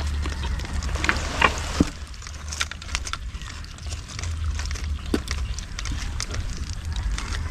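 Scattered clicks and knocks of caught crabs being handled and sorted, over a low steady rumble.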